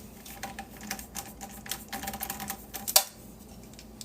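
Rapid small metallic clicks and clinks of a hand screwdriver working screws out of a steel server chassis, with one sharper knock about three seconds in.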